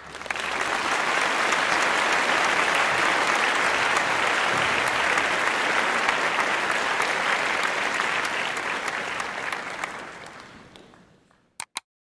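A crowd applauding, a steady clatter of clapping that fades out over the last couple of seconds. It is followed by two quick mouse clicks.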